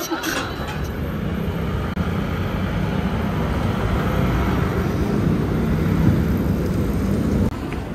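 City street traffic at a busy intersection: a steady low rumble of passing cars and motorbikes, dropping suddenly near the end.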